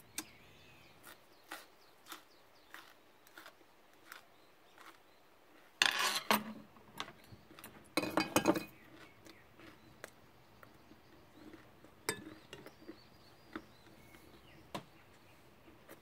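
Eating at the table: scattered light clicks of metal chopsticks and a spoon against the dishes while leafy greens are handled and chewed, with two louder, longer sounds about six and eight seconds in.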